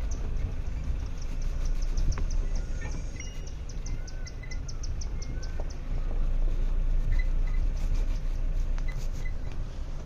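Low, steady rumble of a safari vehicle's engine, with a few scattered bird chirps. Through roughly the first half comes a fast run of thin high ticks, about five a second.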